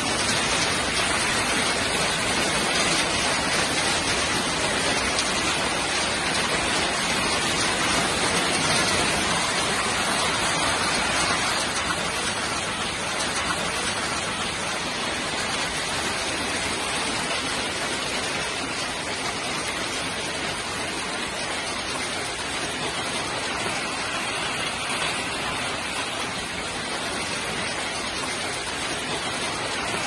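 Heavy hail falling with rain: a dense, steady hiss of hailstones striking the ground, easing slightly about twelve seconds in.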